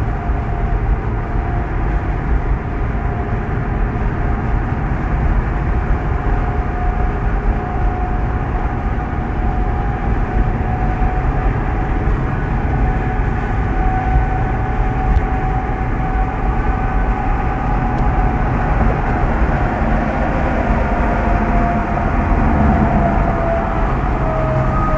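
Peterbilt 389 semi truck's diesel engine running with a heavy low rumble and a steady turbo whistle, the whistle dipping slightly in pitch near the end.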